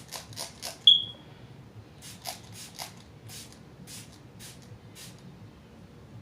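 Fine-mist pump spray bottle of primer water being spritzed again and again: about a dozen short hissing sprays over the first five seconds, with a brief high squeak about a second in.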